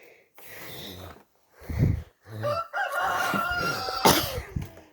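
A man imitating a rooster's crow: one drawn-out cock-a-doodle-doo of about two and a half seconds, starting about halfway in, after a short loud low sound.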